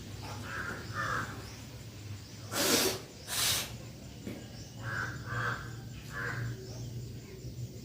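Crows cawing in short runs of two or three calls, once early and again in the second half. Near the middle come two loud, short whooshing rushes of noise about a second apart.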